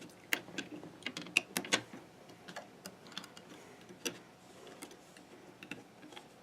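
Light, irregular clicks and taps of rubber bands being stretched and snapped onto the plastic pegs of a Fun Loom, a quick cluster in the first two seconds and a few scattered ones after.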